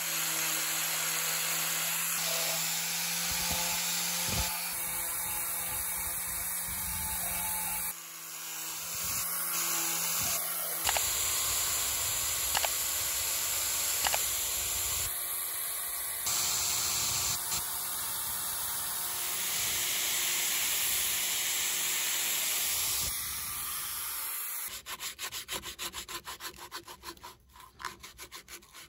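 Angle grinder with a sanding disc running against a bamboo cup spinning on a wood lathe: a steady, loud abrasive grinding over the motor's whine. Near the end this gives way to sandpaper held by hand against the turning cup, a quieter, rapid rasping.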